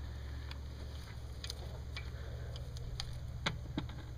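Scattered light clicks and taps of metal and hoist chain as the cylinder head, hung from a chain hoist, is guided down by hand onto the engine block, over a low steady rumble.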